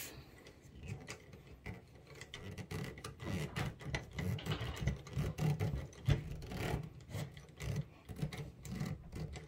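The wooden-handled lever of a tabletop pecan nutcracker being screwed by hand into its threaded metal socket: an irregular soft rubbing and scraping of metal threads turning, with small clicks, busiest in the middle.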